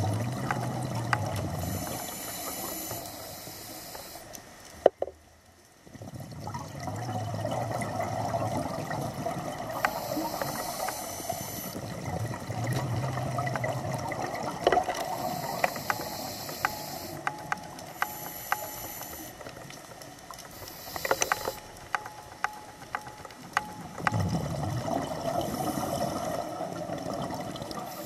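Scuba diver breathing through a regulator, heard underwater: hissing inhalations alternating every few seconds with low bubbling exhalations, with scattered faint clicks.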